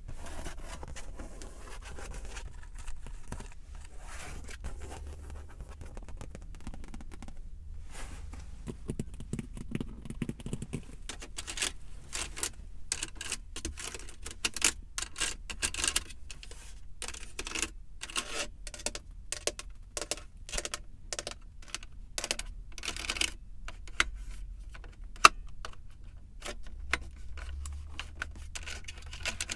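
Tapping on a car's surfaces: soft scratching and rubbing at first, then from about eleven seconds in, quick irregular taps, several a second.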